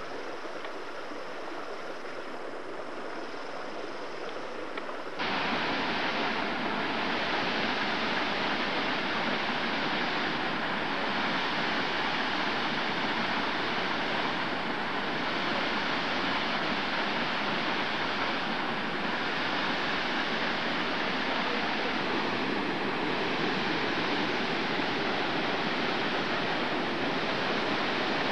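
A waterfall pouring, a steady full rush of falling water that cuts in suddenly about five seconds in, after a quieter steady outdoor rush.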